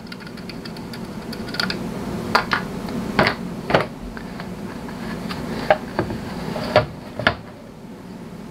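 Scattered small clicks and knocks of hand assembly: a Phillips screwdriver working the small screws into the plastic back of a Raven Cruizer II monitor, and hard plastic mount parts being handled and set on a desk. A low steady hum of room noise runs underneath.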